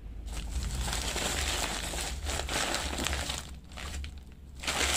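Plastic courier mailer and bubble wrap crinkling and rustling in irregular crackles as hands open the parcel, easing off briefly about three and a half seconds in.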